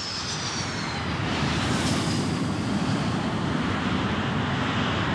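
Jet aircraft engine noise: a dense, steady rush that swells over the first two seconds and then holds, with a high whine sliding down in pitch at the start.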